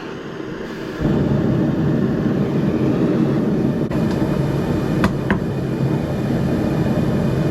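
Forge running with a steady low roar that grows louder about a second in, with a couple of faint short high pings around the middle.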